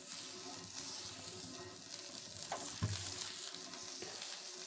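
Rava dosa sizzling on a hot dosa griddle (tawa) as oil is poured over it: a steady frying hiss, with a faint low knock a little under three seconds in.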